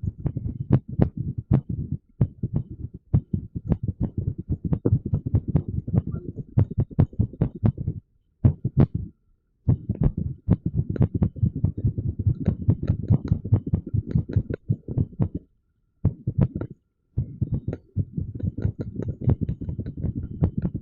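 Amplified irregular heartbeat, the low thuds overlaid with fast, uneven clicking, heard while a TENS unit is in use. The sound is broken by a few brief silences.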